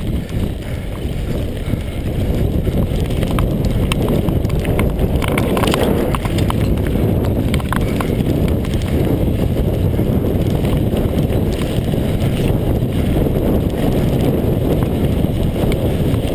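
A Mondraker Kaiser downhill mountain bike rolling fast down a gravel dirt track. Tyres rumble over the gravel and wind buffets the camera microphone, with scattered clicks and rattles from the bike jolting over bumps.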